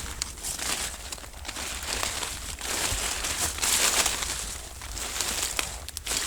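Footsteps through forest undergrowth: irregular rustling and crunching of brush and leaves, with a few small snaps of twigs.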